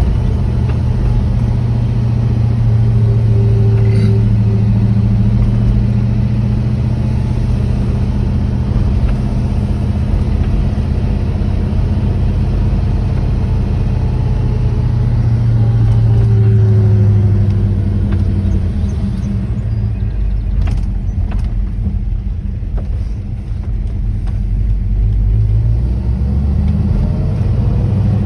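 A Camaro Z28's V8 engine idling steadily with a low hum. A few short, faint squeaks sound over it, and there are light clicks in the last third.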